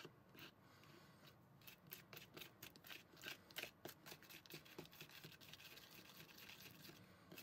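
Faint, irregular scraping and tapping of a small plastic spoon stirring thick frosting paste in a plastic mixing bowl.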